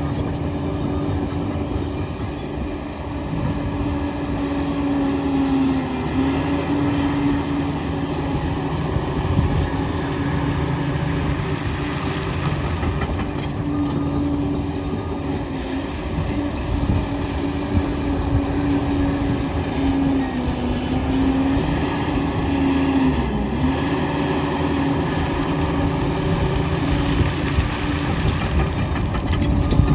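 Liebherr PR 746 crawler dozer working: a steady engine and drive whine that dips briefly in pitch three times, over the clatter of its steel tracks.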